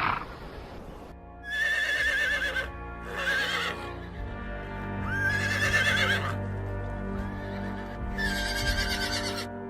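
Horses whinnying four times, each a quavering call about a second long, over background music with sustained tones.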